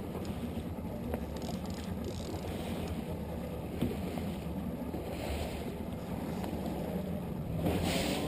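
Outboard motor running steadily at trolling speed as the boat moves through the water, with wind on the microphone and a few brief hissy swells.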